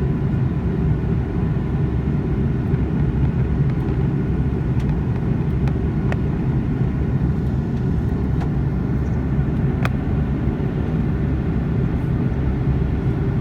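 Steady, even cabin drone of a jet airliner on its approach, the engine and airflow noise heard from inside the passenger cabin by the window, with a few faint ticks above it.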